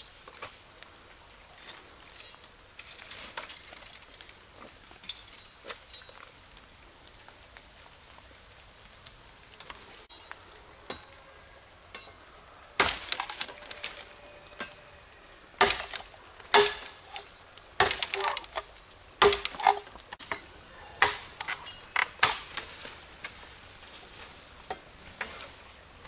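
Bamboo being cut and broken: about ten sharp, woody knocks and cracks in the second half, some with a brief hollow ring. Before them, light rustling and footsteps in dry leaf litter.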